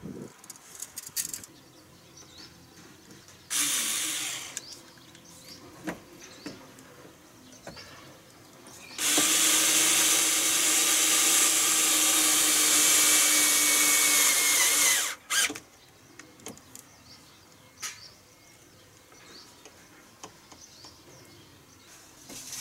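Corded electric drill working on a black plastic pipe joint: a short run of about a second, then a steady run of about six seconds that cuts off, with small handling clicks between.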